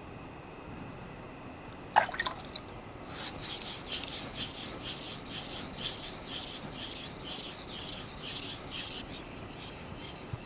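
Japanese gyuto kitchen knife being sharpened on a wet synthetic whetstone. A sharp click about two seconds in as the blade meets the stone, then quick, even back-and-forth rasping strokes of steel on the wet stone, about two to three a second, raising a burr on the second side of the secondary bevel.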